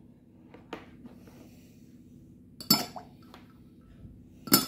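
Ice cubes dropped into a partly filled glass, clinking against it: a faint tick about a second in, then sharp clinks nearly three seconds in and, loudest, near the end.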